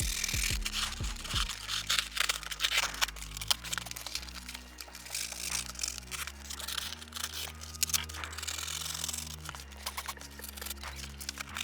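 Background music with held bass notes that change every second or so, over drum hits and busy percussive clicks.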